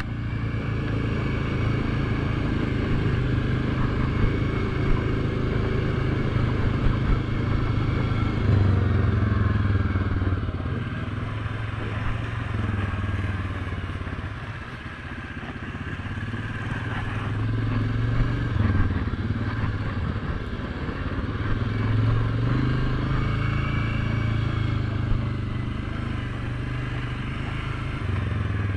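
ATV engine running while the quad is ridden along a dirt trail. The engine pulls harder and eases off in turn, dropping back about halfway through and then picking up again.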